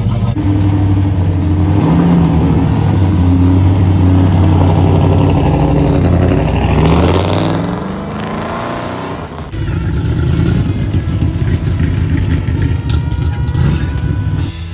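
Loud classic hot rod engines driving past one after another. The first car's engine note drops in pitch about seven seconds in. After a break, a rougher, noisier engine runs to the end.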